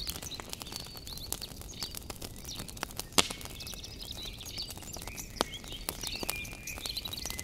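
Wood fire crackling with irregular sharp pops, the loudest about three seconds in, while birds chirp.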